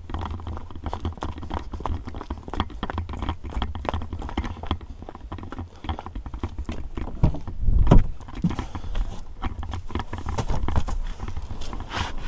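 Footsteps on a paved driveway, a sharp knock about twice a second over a steady low rumble. There is a louder thump about eight seconds in, while the walker is at the side of the car.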